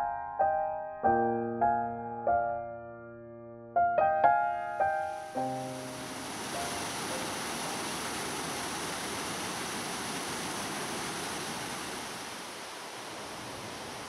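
Piano music plays a few notes and dies away within the first five seconds or so. Then the steady rush of a river pouring over a waterfall takes over, easing slightly near the end.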